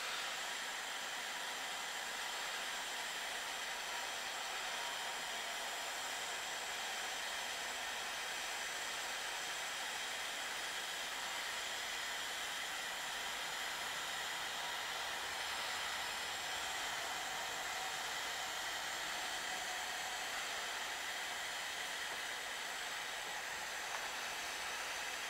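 Work Zone butane gas soldering iron burning, its gas jet giving a steady, even hiss.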